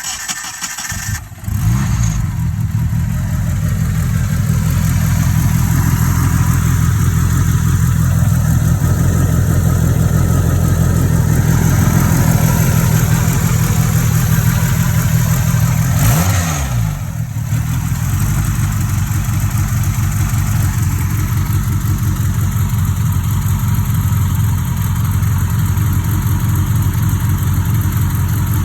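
A 2G Mitsubishi Eclipse GS-T's turbocharged 4G63 four-cylinder cranks briefly, catches about a second and a half in, and settles into a steady idle. About sixteen seconds in the revs sag and then pick up again.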